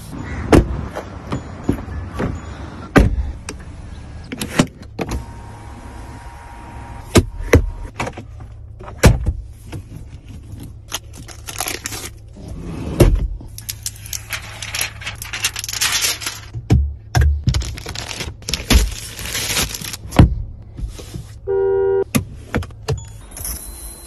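Clicks, knocks and thumps from the interior trim of a new Mahindra XUV700 being handled, including the rear fold-down armrest and its cupholders, with stretches of plastic protective wrap rustling over the gear selector. A short electronic beep sounds near the end.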